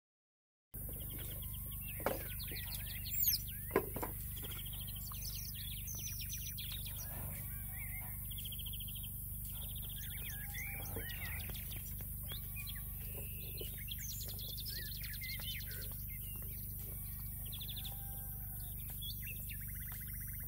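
Birds chirping and trilling, many short calls and rapid trills in varied patterns, with a few louder, sharp sweeping calls about two to four seconds in. A steady low hum runs underneath.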